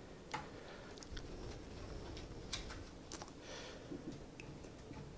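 Faint, scattered clicks and taps of hands working a digital kitchen scale: the button is pressed, then a folded Veloflex Corsa Race 23 mm road tyre is set down on the steel platform. There is a brief rustle of the tyre about three and a half seconds in.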